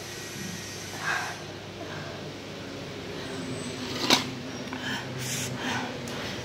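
A person breathing hard through the mouth, with short hissing and snorting breaths, reacting to the burn of extra-spicy noodles. A single sharp click about four seconds in.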